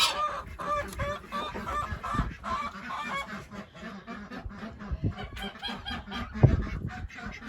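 Domestic poultry calling: a run of short, repeated pitched calls, most frequent in the first few seconds. A single loud thump comes about six and a half seconds in.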